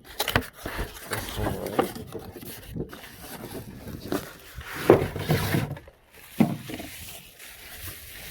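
Rustling, scraping and irregular knocks of a storage box and its packaging being handled, with a louder knock about five seconds in and another about six and a half seconds in.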